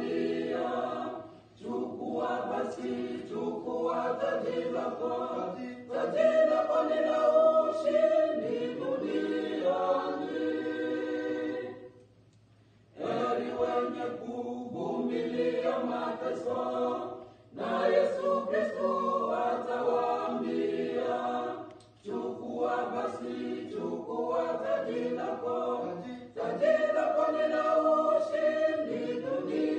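A small group of men and women singing a hymn together in harmony, in phrases of a few seconds with short breaks between them, and one longer pause of about a second near the middle.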